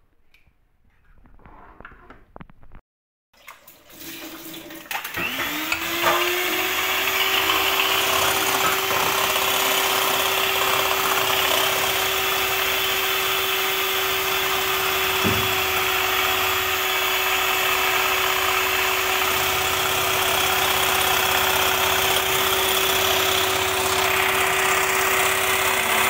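Electric hand mixer (Anex) whisking eggs in a glass bowl. Its motor starts about five seconds in, rising quickly to speed, then runs with a steady whirring hum.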